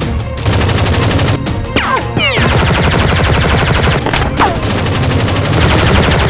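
Bursts of rapid automatic gunfire sound effects layered over background music, with two quick falling sweeps in the middle.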